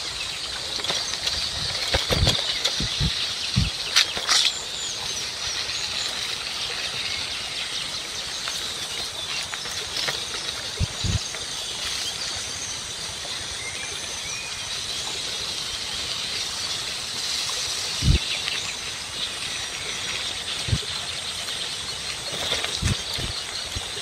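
Outdoor ambience with birds chirping steadily, and a few brief low thumps.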